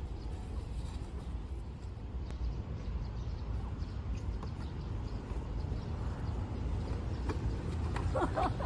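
Folding camping table being handled and packed away: scattered light knocks and clatter over a steady low rumble, with a short burst of clattering about eight seconds in.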